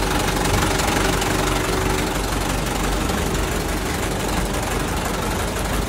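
Diesel engine of a 7-ton Cuu Long dump truck idling steadily.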